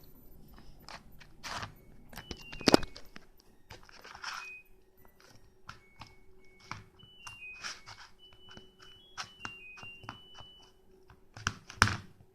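Homemade slime being squeezed and stretched by hand: irregular wet clicks, crackles and squishes, with one sharp pop about a quarter of the way in. Short high beeps are scattered through it.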